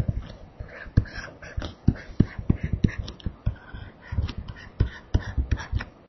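Stylus tapping and scraping on a tablet screen as short lines are drawn: a run of irregular sharp clicks, several a second.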